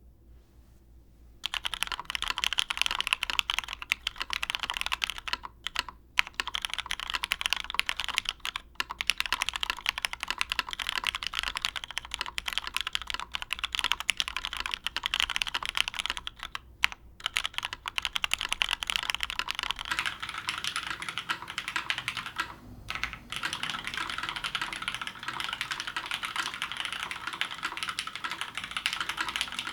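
Continuous fast typing on a custom Matrix Labs 1.2OG mechanical keyboard: lubed Cherry MX Black Hyperglide linear switches in a top-mounted aluminium plate under GMK keycaps, a steady stream of keystroke clacks with a few short pauses. The typing starts about a second and a half in, and the tone changes about two-thirds of the way through as a different microphone takes over.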